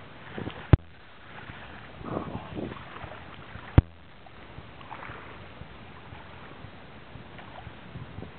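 Wind rushing on a small camera microphone, broken by two sharp clicks about three seconds apart.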